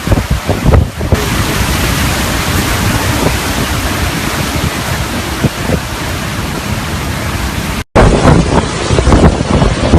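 Hurricane Irma's wind blowing hard against the microphone as a loud, steady rush of noise. Near the end it breaks off abruptly and a second stretch of gustier, buffeting wind follows.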